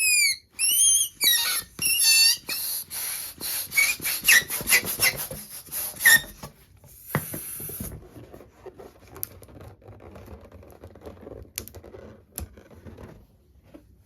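Inflated rubber balloons squeaking as they are rubbed and handled: a quick run of high, sliding squeaks for about seven seconds. Then a sharp click, followed by softer rustling and a few faint clicks.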